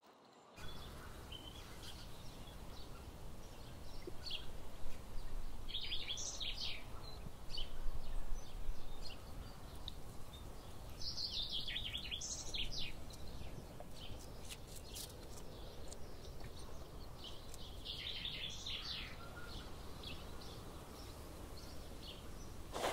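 A songbird singing a short, rapid phrase of high notes three times, several seconds apart, over a steady low background rumble.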